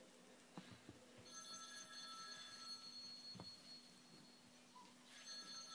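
Faint ringing of several steady high tones sounding together, held for about three seconds from about a second in and starting again near the end, with a few soft taps.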